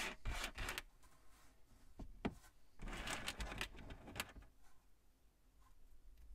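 Small plastic Plus-Plus building pieces clicking and rattling against each other and a tabletop as they are handled and spread out, with two sharp clicks about two seconds in and a burst of rattling around three to four seconds.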